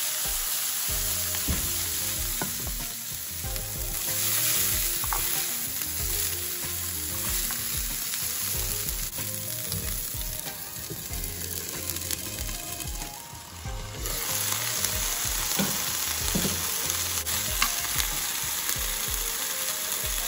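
Broccolini sizzling as it sautés in a little hot oil in a non-stick frying pan.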